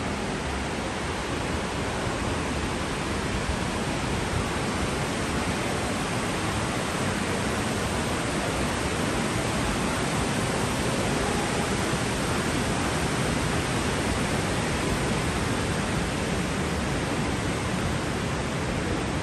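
A steady, even rushing hiss with no breaks or changes.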